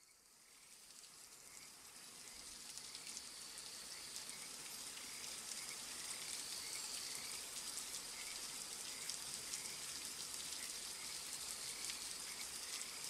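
Rain falling, an even crackling hiss of many small drop ticks that fades in gradually from silence. A faint short chirp repeats about every half second through the first half.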